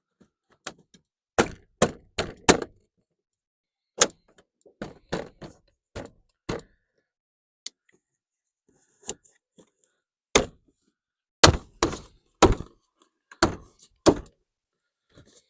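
Irregular sharp knocks and thunks on a pickup truck's door, some in quick runs of two or three, as the door panel and its fittings are pressed and snapped back into place, with the loudest hits about two thirds of the way in.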